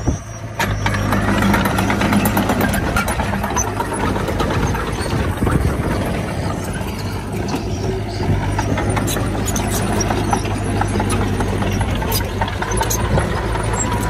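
Heavy diesel earthmoving machinery running steadily, with scattered knocks and clanks over the engine hum. The sound dips briefly right at the start, then carries on at an even level.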